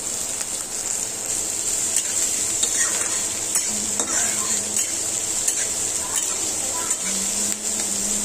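Chopped onions sizzling in hot oil in a metal kadhai, with a metal spatula scraping and clicking against the pan as they are stirred; the onions are being sautéed until brown.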